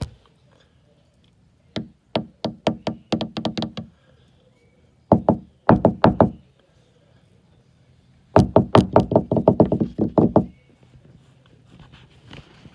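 Rapid knocking in three bursts of several quick strikes each, with short pauses between bursts.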